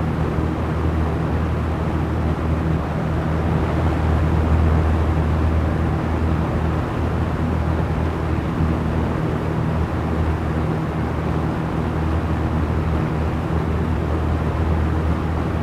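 Small electric fan running steadily: a continuous motor hum under a soft, even rush of air.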